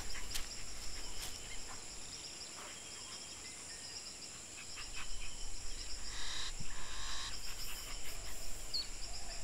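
Forest ambience: a steady, high-pitched chorus of insects such as crickets. There is a brief soft noise about six seconds in and a short bird chirp near the end.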